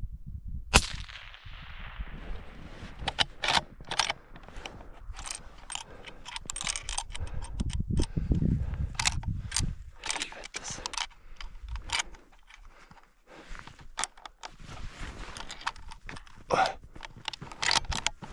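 Close handling noise from a hunter lying in snow: clothing and gear rustling, with scattered clicks from the rifle resting on the pack. The sharpest click comes about a second in.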